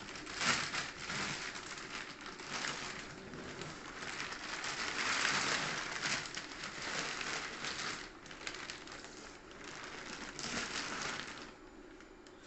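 Clear plastic wrapping bag crinkling and rustling as it is worked off an inverter, with a dense run of crackles that stops shortly before the end.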